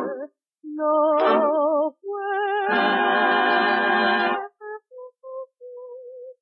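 Music playing from a 1943 V-Disc record: wavering held notes with vibrato, swelling into a full held chord around the middle, then thinning to short, scattered single notes. Phrases stop abruptly into silent gaps.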